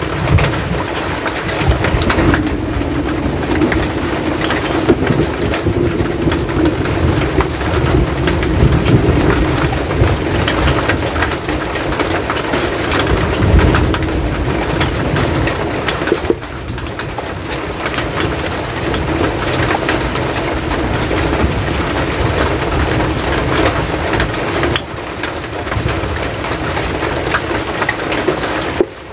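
Steady rain falling close by: a dense, even patter of drops on the hut's roof and the wet ground.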